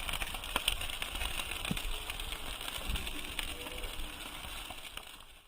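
Open cooking fire with a steady hiss and scattered crackles and pops.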